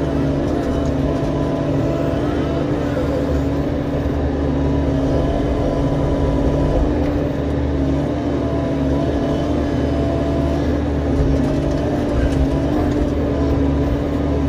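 Diesel engine of a compact earthmoving machine running steadily.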